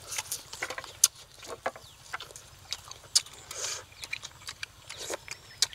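People chewing and smacking their lips while eating, a run of irregular wet clicks and crunches.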